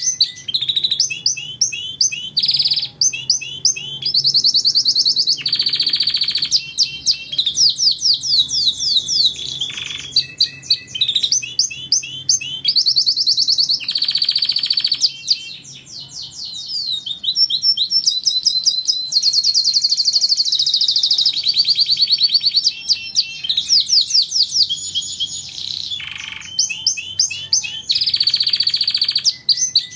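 Domestic canary singing without pause: a string of fast, high-pitched trills and rolls, each phrase a rapid run of repeated notes before switching to the next.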